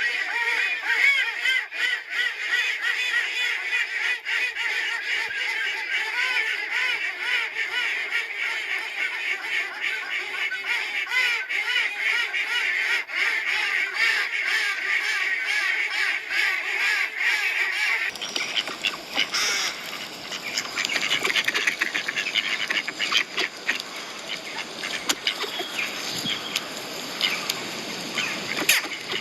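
A large flock of domestic ducks quacking continuously, many calls overlapping. About 18 s in the sound changes abruptly to sparser calls over a noisier background.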